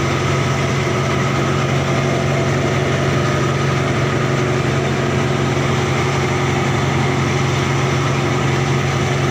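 Fishing boat's engine running steadily at an even speed, a constant low drone with several steady tones.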